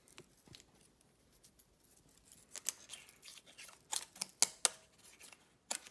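Steel feeler gauge blades clicking and scraping while a blade is picked from an angled feeler gauge set and worked between a camshaft lobe and a lifter to check valve lash. The first couple of seconds are faint, then several sharp metallic clicks and short scrapes come in the second half.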